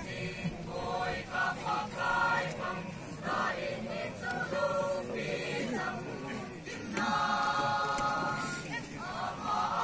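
Choir singing in parts, a run of short sung chords with a longer held chord about seven seconds in.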